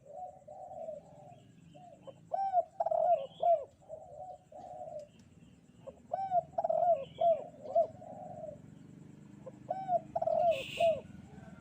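Spotted dove (derkuku) cooing in repeated multi-note phrases, a new phrase every few seconds, in the 'kuk 2' song style valued by Indonesian dove keepers. Faint chirps from small birds and a low steady hum lie underneath.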